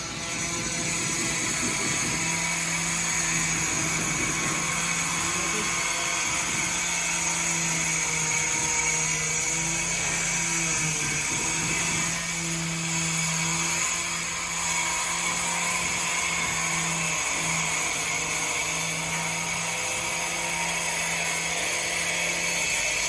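Power tool whining steadily on a building site, its drone dropping out briefly a few times.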